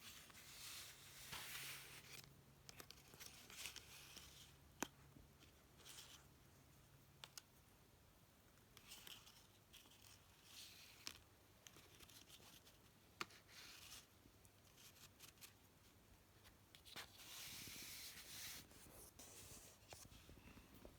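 Paper and card being handled: soft intermittent rustling and scraping, with a few sharp clicks.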